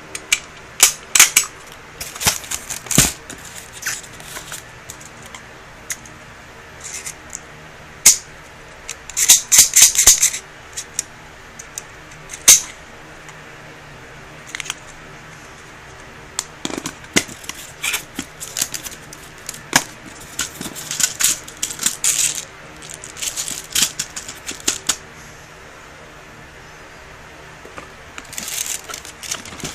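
Handling of a spring-powered 1911-style airsoft pistol: irregular sharp clicks and short bursts of rattling from its parts, with a quiet pause about three-quarters of the way through.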